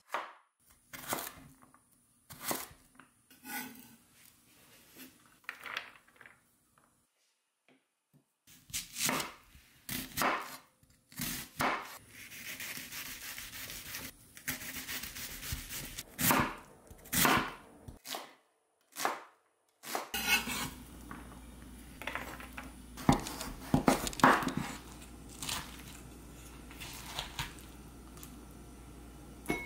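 Kitchen knife chopping and slicing vegetables (pumpkin, onion) on a wooden cutting board: separate sharp chops with pauses between them. About two-thirds of the way through come softer rubbing and scraping sounds among a few more knife strikes.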